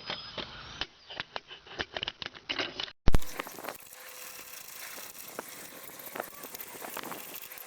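Ratchet socket wrench clicking and hand tools knocking on the shipping crate's bolts in a quick irregular run. About three seconds in there is a sharp thump, then a quieter steady background with scattered clicks.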